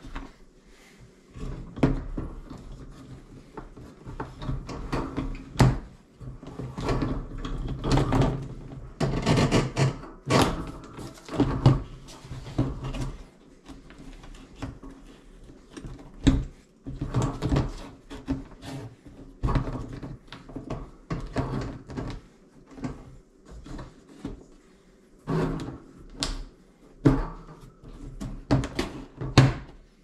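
Rubber dishwasher drain hose being worked into the clips of its high loop on the side of the plastic tub: irregular knocks, clicks and rustling as the hose and tub are handled.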